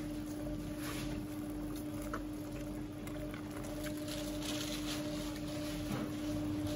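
A steady low electrical or machine hum, with scattered light clicks and taps over it.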